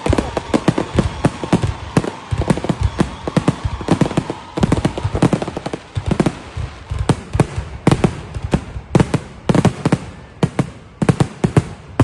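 Rapid, uneven barrage of firework bangs, several a second, without a pause.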